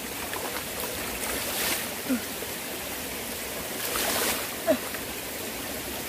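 Mountain stream running steadily over rocks, with water poured from a plastic dipper splashing into it twice, about one and a half seconds in and again about four seconds in.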